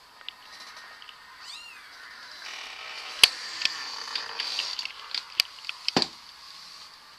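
A cat gives one short meow, followed by rustling and several sharp knocks or clatters; the loudest knock comes about three seconds in.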